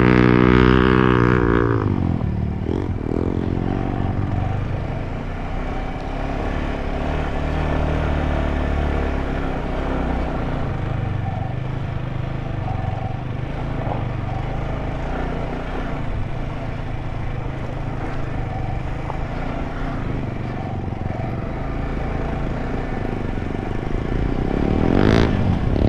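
Motorcycle engine running at low speed on a dirt trail. Its pitch rises and falls with the throttle near the start and again near the end.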